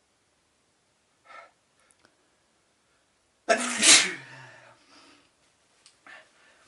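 A person sneezing once, loudly, about halfway through.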